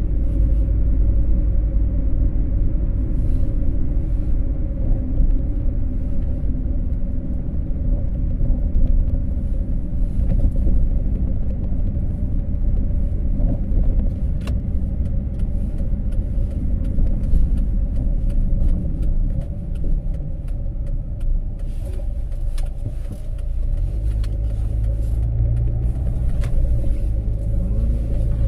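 Car driving, heard from inside the cabin: a steady low rumble of engine and road noise. Near the end the rumble eases a little and a steady low engine hum comes through.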